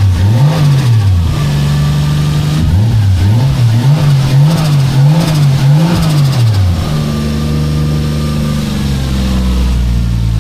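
Toyota 1JZ-GTE VVT-i turbocharged inline-six, cold, revved with quick throttle blips: one rev near the start, a short steady higher idle, then four quick revs about a second apart, settling to a steady idle near the end. It revs cleanly on a freshly fitted VVT-i oil control valve solenoid.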